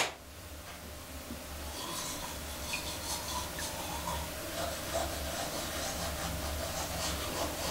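Toothbrush scrubbing teeth: a fast, irregular bristly rasp that starts about two seconds in, over a steady low hum. A single sharp click comes at the very start.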